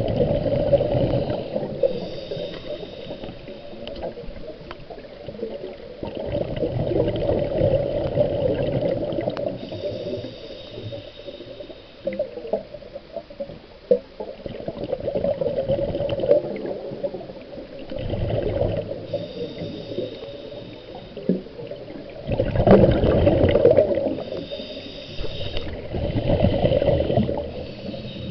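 Scuba diver breathing through a regulator underwater: a thin hissing inhale, then a longer, louder rush of bubbling exhaust, about four breaths in a row.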